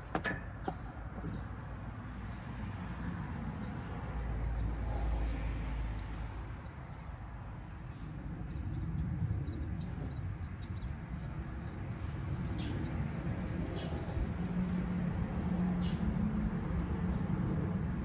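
Low rumble of a passing vehicle with a bird chirping a string of short falling notes; a few sharp clicks right at the start.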